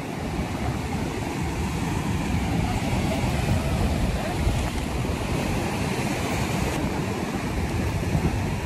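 Sea surf breaking and washing in a steady, unbroken rush, with wind on the microphone.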